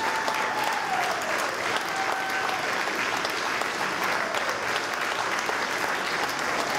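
Audience applauding steadily: a curtain call, with the cast bowing.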